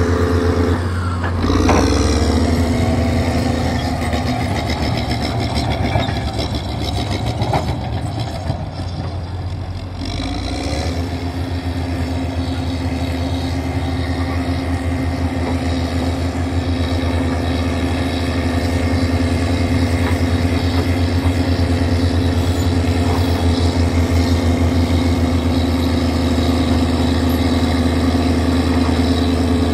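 Diesel engine of a Caterpillar crawler bulldozer running as it pushes a load of sand. The engine note dips and picks up again about two seconds in, sags again around ten seconds in, then holds steady.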